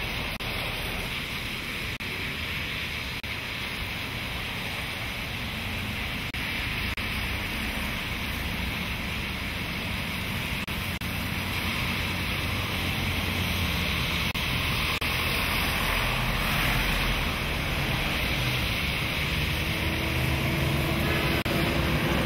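Traffic driving through a flooded street: a steady hiss and swish of tyres through standing water over low engine rumble, with one vehicle's engine coming up louder over the last few seconds.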